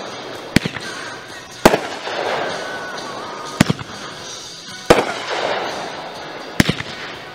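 Aerial firework shells bursting overhead: about five sharp bangs one to two seconds apart, the last a quick double. The bigger bursts are followed by a lingering crackle.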